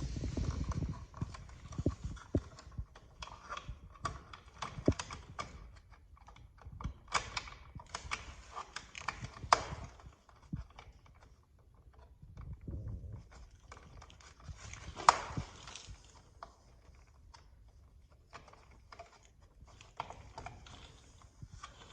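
Electrical wires and plastic wire nuts being folded and pushed into an outlet box: irregular clicks, taps and knocks, the loudest about fifteen seconds in.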